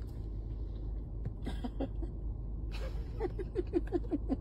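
Steady low rumble of a car cabin, joined partway through by a quick run of short, falling pitched vocal sounds at about four or five a second.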